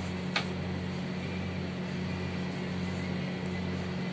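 Steady low machine hum from a running appliance, with a single sharp knife tap about half a second in as a tomato is sliced.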